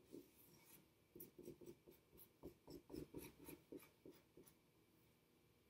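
A marker drawing on paper, faint, in a quick run of short strokes.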